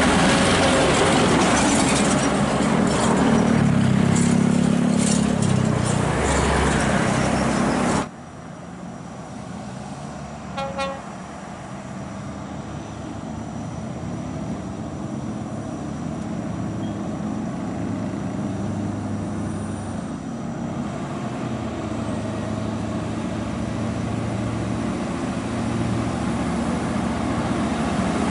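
Scania R580 V8 diesel tractor unit hauling a heavy articulated dump truck on a lowboy trailer: loud engine and tyre noise as it passes close by for the first several seconds, then, after a sudden drop, the engine heard farther off pulling uphill under load and growing steadily louder as it approaches. A brief horn toot sounds about ten seconds in.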